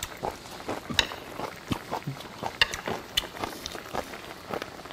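Close-up eating sounds: chewing and lip smacks, with scattered light clicks of metal chopsticks against the pot and dishes.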